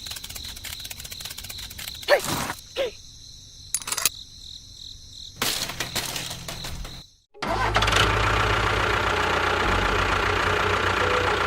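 Scattered clicks and clatter with a few short squeaks, then a sudden break and a motor running steadily and loudly to the end.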